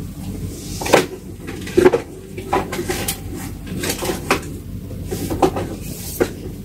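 Handling sounds: about eight light, irregular knocks and clicks over a steady low hum.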